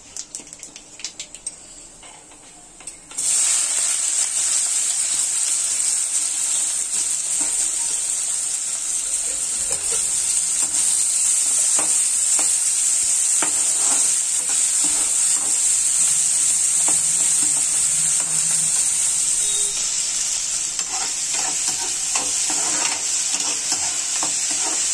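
Chopped onions frying in hot oil with cumin seeds in a steel kadai: a loud steady sizzle that starts suddenly about three seconds in as they go into the pan. A spoon scrapes and clinks against the pan as they are stirred.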